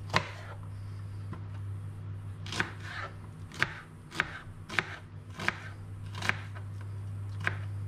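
Kitchen knife cutting a red onion into thick chunks on a plastic cutting board: about nine sharp knocks of the blade on the board, unevenly spaced and mostly in the second half, over a steady low hum.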